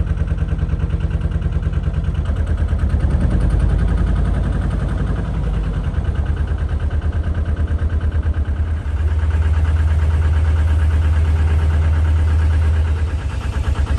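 Narrowboat's diesel engine running under way, a loud, steady, even chugging.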